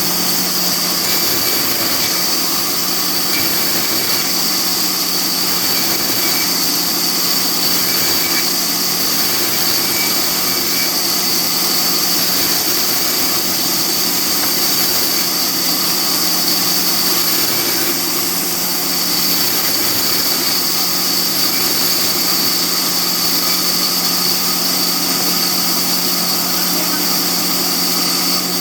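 Sawmill machinery running steadily: a continuous hum with a high-pitched whine above it, at an unchanging level.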